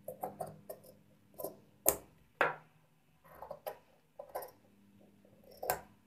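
Tailor's shears snipping through stitched cloth and buckram, trimming the seam allowance around a neck facing: a run of short, sharp snips at uneven intervals, the loudest two about two seconds in.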